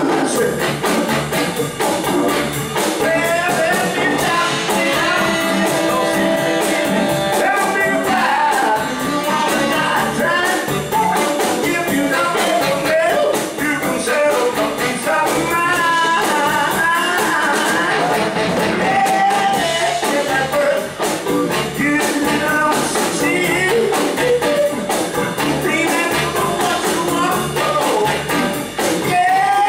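Live rhythm-and-blues band playing: electric guitar, upright bass, drums, electric keyboard and two saxophones, with a man singing.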